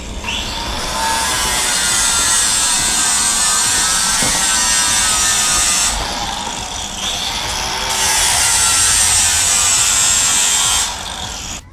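Power grinder grinding on a hawse fairlead, a steady loud grinding that eases for about two seconds in the middle, picks up again and stops near the end.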